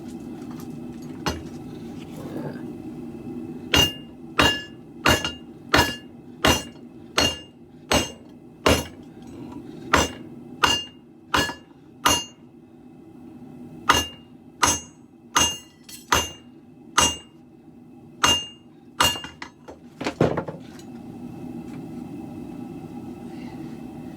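Hammer blows on a sword billet over an anvil, in two runs of steady forging strikes about one every 0.7 s with a short pause between them. Each blow leaves a brief metallic ring, over a steady low drone.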